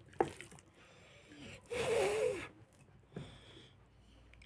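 Mouth noises from a person eating with his hands: a sharp smack just after the start, then a loud, noisy mouth sound with a wavering pitch lasting under a second, and another smaller smack about three seconds in.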